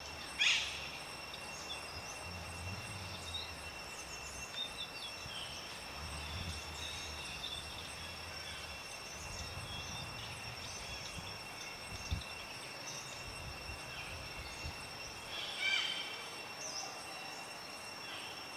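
Outdoor ambience: a steady high insect drone, scattered short chirps, and a low rumble underneath. A brief louder call falling in pitch comes right at the start, and another about sixteen seconds in.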